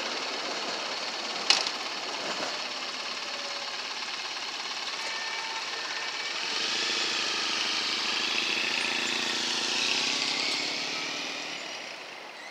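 Street traffic noise at a light-rail crossing just after a train has cleared, with a sharp click about a second and a half in. From about six seconds in, vehicle engines grow louder as cars and a motorcycle move off across the tracks once the gate arms have risen, then fade near the end.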